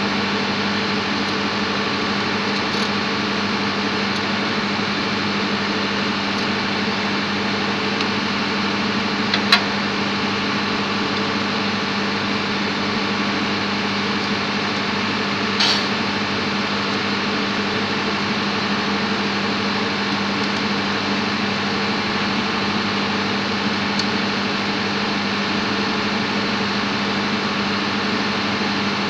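Steady drone of engine-room machinery running, with a constant low hum. Two short sharp clinks cut through it, one about ten seconds in and one about sixteen seconds in.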